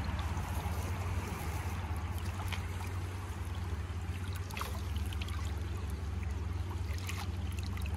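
Shallow channel water running steadily, with a few faint clicks and sloshes as hands and sticks work in the water.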